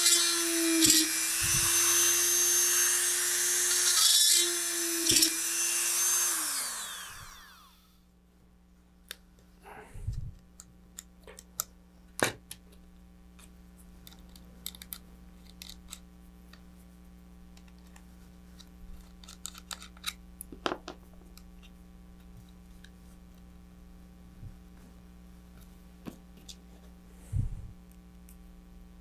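Small handheld power drill running with a steady high whine as it bores out the hole in the bottom of an ejection charge cup one size larger. About seven seconds in it is switched off and winds down with a falling pitch. After that come faint light clicks and taps of small parts being handled.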